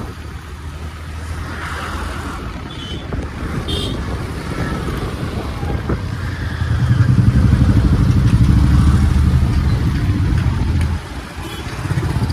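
Street traffic heard from a moving vehicle, with an engine running close by that grows louder for a few seconds in the second half. Two short high beeps, like vehicle horn toots, sound about three and four seconds in.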